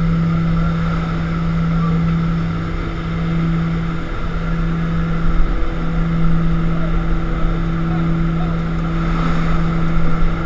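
Short Skyvan's twin turboprop engines droning steadily at one constant pitch inside the cabin, with wind rushing through the open rear ramp.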